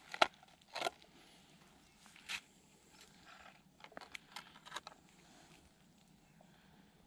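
A handful of short, sharp crunches on snowy ice: two close together near the start, another about two and a half seconds in, then a quick run of them about four seconds in.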